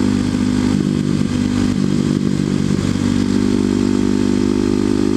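Kawasaki KLX250SF's single-cylinder four-stroke engine running through a Muzzy aftermarket exhaust, heard from on board while riding. The revs waver in the first half and hold steady from about three seconds in.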